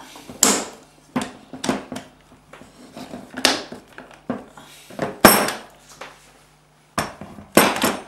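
Metal and plastic parts of a Mercedes W202 automatic gear selector assembly clicking and knocking as it is worked with hand tools during reassembly. There is a string of sharp clicks, the loudest about five seconds in, and a short silent break near the end.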